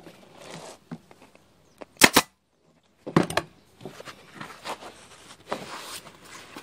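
Upholstery staple gun firing staples through vinyl into a plastic motorcycle seat base: two sharp shots close together about two seconds in, then another couple a second later, with quieter rustling of the vinyl being stretched and handled.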